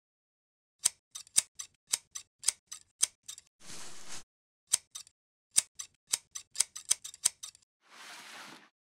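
Scissors snipping: an irregular run of sharp clicks, broken by a short swish about halfway through and another near the end.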